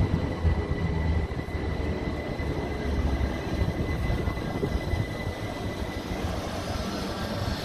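c2c Class 357 electric multiple unit moving slowly through the station platform: a steady rumble of wheels and running gear with a faint, steady high whine.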